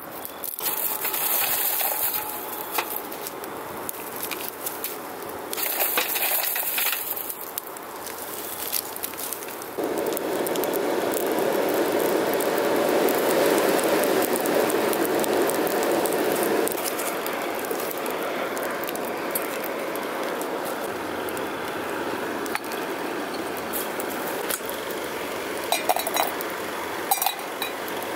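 Coal and kindling fire in a small brick forge crackling and popping, with a rushing hiss of flame and air. A louder rushing noise comes in abruptly about ten seconds in and drops away some seven seconds later, and a few sharp clinks sound near the end.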